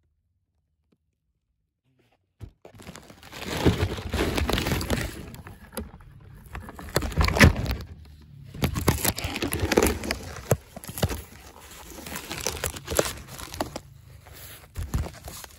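Close handling noise from the crashed foam flying wing: rustling, scraping and crackling against the microphone, with sharp knocks, starting about two and a half seconds in after silence.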